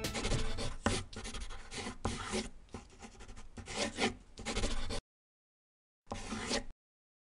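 Marker pen scratching on a drawing surface in a quick run of short strokes, as of letters being written. It stops about five seconds in, and one more short scratch follows near the end.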